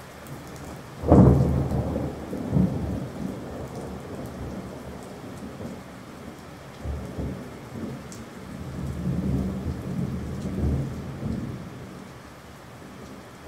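A thunderclap about a second in, then thunder rolling on in several swells before fading near the end, over steady rain.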